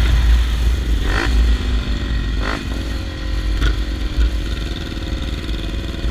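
Motorcycle engine running with a deep rumble and three short throttle blips, about a second and a bit apart.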